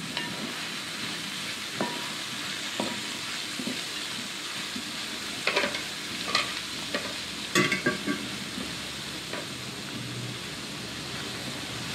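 Sliced onions sizzling in hot coconut oil in a wide metal pan, with a steady hiss as a wooden spatula stirs them, scraping and knocking against the pan. A few sharper knocks come a little past halfway.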